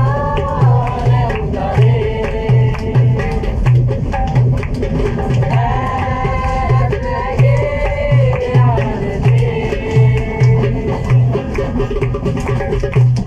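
A hand drum played on the lap with a steady beat, accompanying voices singing a melodic folk-style song.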